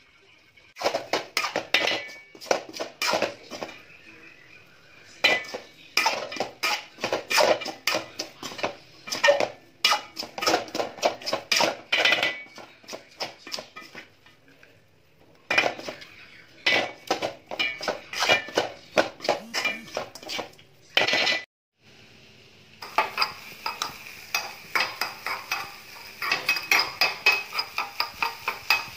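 Spoon scraping and clinking against a stainless-steel kadai as fried rice is stirred, in quick irregular runs of strokes with short pauses. After a brief cut about three-quarters through, a steel spoon clinks rapidly against a smaller steel pan over a steady sizzle as eggs are scrambled.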